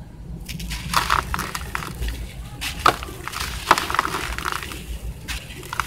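Dry, dusty sand-and-cement cakes being crushed and crumbled in the hands: irregular gritty crunching and crackling, loudest in two sharp cracks a little before three and four seconds in.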